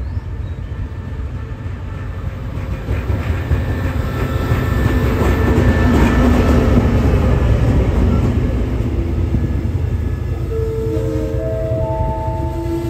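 Special Express No. 32 running into the station, late: a loud rumble of the train and its wheels that swells to its loudest about halfway through. Near the end a short run of steady tones sounds, stepping up in pitch.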